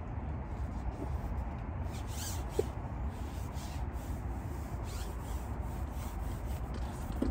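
Light rubbing and scraping of a match-fishing pole being handled and shipped out, over a steady low rumble.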